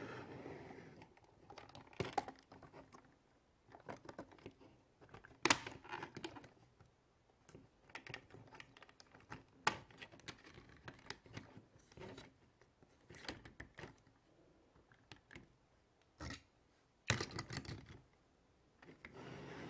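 Irregular plastic clicks and clacks from handling a toy car-hauler truck: the trailer's side panel and fold-down ramp being worked and a die-cast car set on the deck. The sharpest clicks come about five seconds in and as a short clatter near the end.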